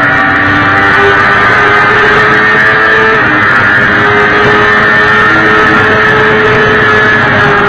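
Sport motorcycle engine running steadily at cruising speed, heard from the bike itself with heavy wind rush over the microphone.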